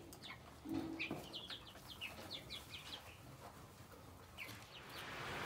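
Young chickens, a mix of Cornish cross meat birds and egg layers, peeping softly while they feed: many short, high chirps scattered throughout, with a brief lower call about a second in. A steady hiss rises near the end.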